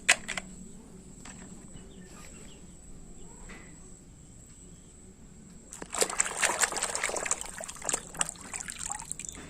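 Water splashing and trickling as a toy car is washed by hand. It is quiet at first; about six seconds in, a busy stretch of splashing and sloshing starts and runs for about three seconds.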